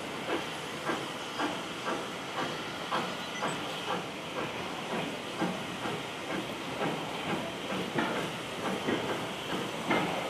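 Caledonian Railway steam locomotive pulling away under heavy load: evenly spaced exhaust beats, about two a second and coming a little quicker near the end, over a steady hiss of steam.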